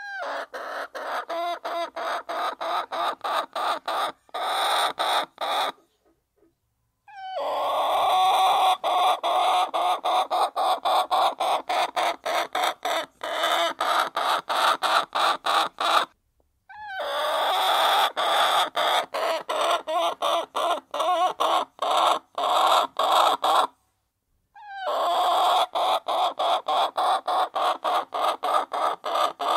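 A flock of hens clucking as they feed, in stretches of several seconds that break off abruptly into short silences.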